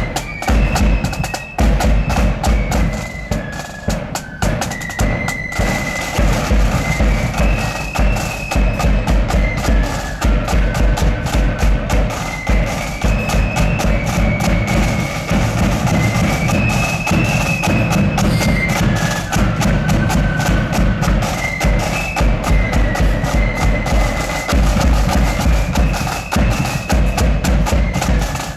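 Marching flute band playing a tune: flutes carry a high melody over a steady beat of bass drum and snare drum.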